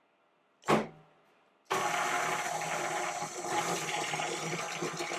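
A single knock, then about two seconds in a KitchenAid tilt-head stand mixer starts up and runs steadily on low speed, its wire whisk churning through thin liquid: Dream Whip powder, milk and vanilla being blended before beating.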